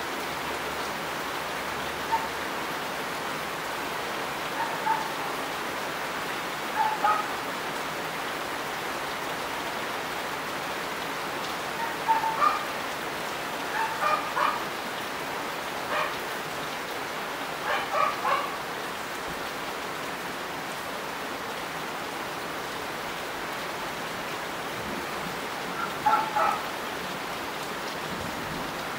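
Heavy rain falling steadily, an even hiss throughout. Short pitched animal calls, often in pairs, come through it now and then.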